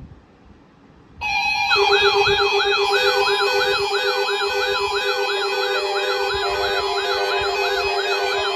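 Loud electronic emergency alarm tones start about a second in. Several layered siren sweeps rise and fall about twice a second over a steady low tone, in the style of an emergency alert alarm.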